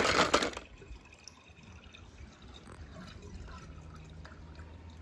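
A loud noisy burst that cuts off about half a second in, then faint dripping and lapping of pool water with a low hum and a few soft ticks.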